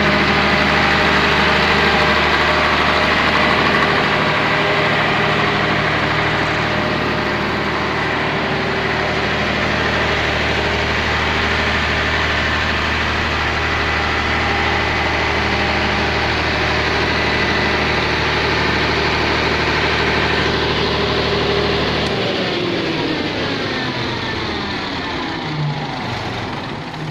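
Volvo Penta diesel engine of a 300 kVA open-type generator set running steadily, then shut down about 22 seconds in, its pitch falling as it winds down.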